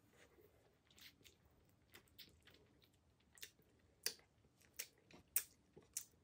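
Close-miked eating of fresh orange wedges: faint chewing and wet mouth noises. From a little past halfway comes a run of sharp wet clicks about every two-thirds of a second.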